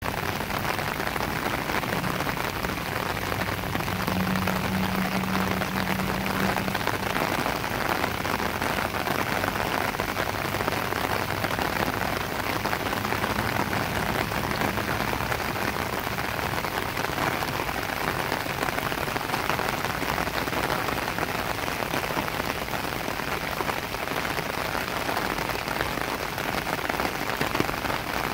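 Steady rain falling on pavement, gravel and puddles of floodwater: a continuous, even hiss. A faint low hum sounds underneath from about two to seven seconds in.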